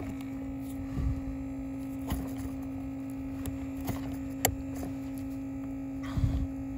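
A steady electrical hum, with a few faint clicks and scrapes of fingers fitting a small spring clip over a heater-flap cable end on its metal bracket; one sharper click comes about four and a half seconds in.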